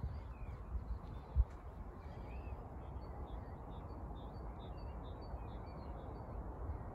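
Wind rumbling on the microphone, with a low bump about a second and a half in. Birds call over it, a quick series of short high chirps through the middle.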